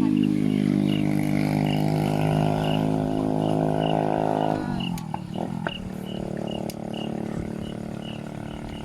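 An engine running steadily, then easing off about four and a half seconds in, its pitch dropping as it carries on more quietly.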